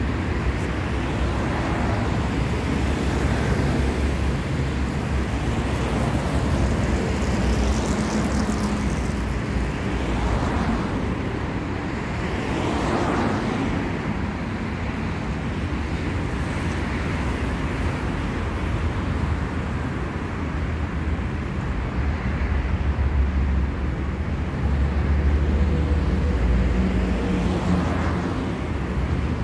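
City street traffic: a steady low rumble of engines and tyres, with vehicles passing now and then, the loudest swells a little over halfway through and near the end.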